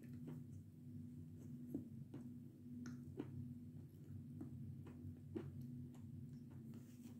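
Chewing a mouthful of Belgorod chalk with the mouth closed: crisp, faint crunches come at uneven intervals, about one or two a second, over a low steady hum.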